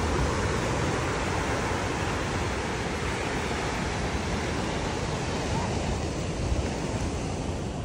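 Ocean surf breaking and washing up a sandy beach, a steady noise throughout, with some wind on the microphone.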